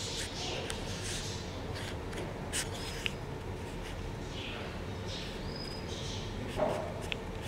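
A few short, high chirping calls over a steady low hum, with a couple of light clicks about two and a half and three seconds in.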